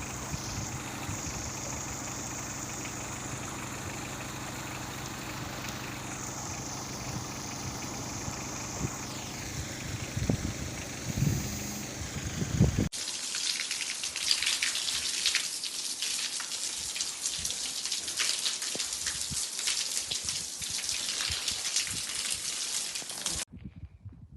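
Rain falling steadily. For the first half it is mixed with a steady low hum; about halfway through the sound cuts to denser, brighter rain.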